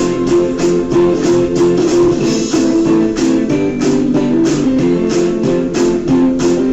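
Background music: guitar playing with a steady strummed rhythm.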